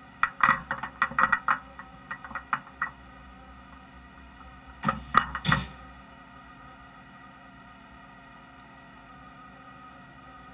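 Metal knocks and clatter of a tool holder being handled and seated by hand in the spindle of a Fadal VMC 5020A CNC mill: a quick run of sharp knocks in the first three seconds, then another short cluster about five seconds in.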